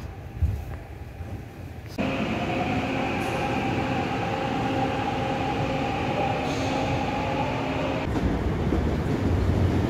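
Seoul Subway Line 6 train at a station: a low rumble at first, then from about two seconds in a steady electrical hum and whine over rumbling noise. The whine stops abruptly about eight seconds in, leaving a low rumble that grows louder.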